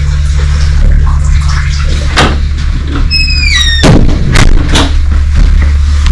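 Steady low rumble of a vehicle on the move, broken by several sharp knocks and clacks spread across the middle and end. About three seconds in there is a short squeal that falls in pitch.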